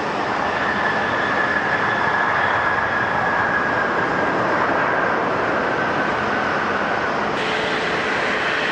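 Airliner jet engines running loud and steady, with a high fan whine that slowly drops a little in pitch. About seven seconds in the sound cuts abruptly to another jet with a lower steady tone.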